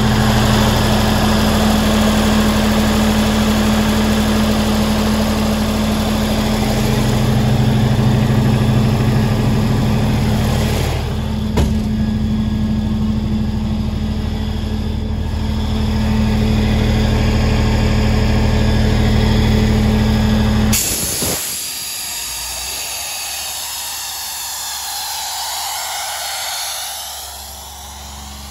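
Atlas Copco XAS 66 diesel compressor-generator running steadily with a deep, even hum, and a single clunk a little before halfway. About two-thirds through the low engine hum cuts off abruptly, leaving a quieter hissing rush.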